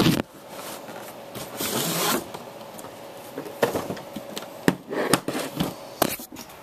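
Hands handling and opening a paintball marker case: a stretch of rubbing and rustling, then several separate clicks and knocks.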